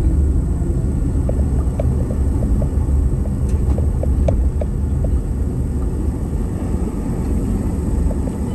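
Steady low rumble of a vehicle driving along a city street, heard from on board, with light ticks now and then.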